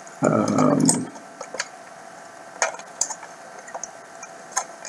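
Small clicks and taps of a metal anti-stringing teeth plate being set into a plastic PA7 cashbox while its spring-loaded pusher plate is held back, a handful of separate clicks spread through the few seconds. A brief, louder, muffled low sound comes just after the start.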